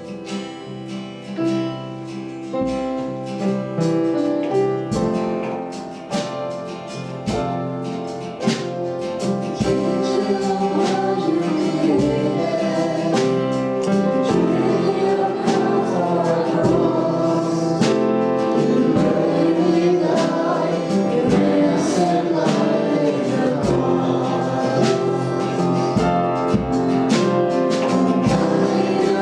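Worship music: a band with guitar plays, and group singing comes in about a third of the way through as the music grows louder.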